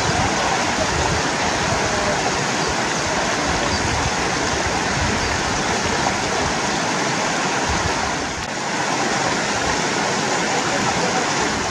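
Mountain stream rushing over small rocky cascades: a steady, full water noise, dipping slightly for a moment about eight seconds in.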